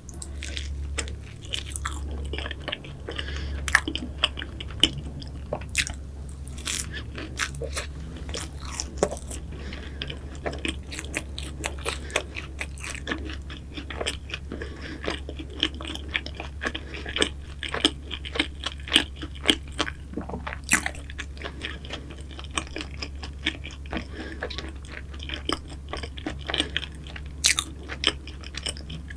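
Close-miked chewing and biting of flaky pastries: a dense run of crisp crunches with louder bites every second or so, over a steady low hum.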